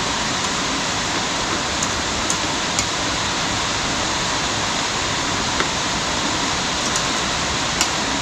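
Steady hiss of heavy rain, with a few light clinks of spoons and forks on plates.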